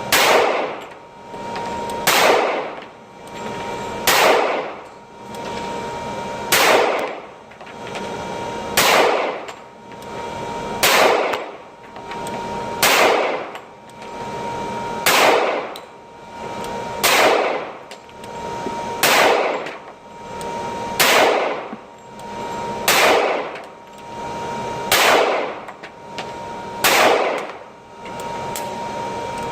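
Semi-automatic pistol shots fired at a steady pace, about fourteen, roughly one every two seconds, each sharp crack followed by a ringing decay.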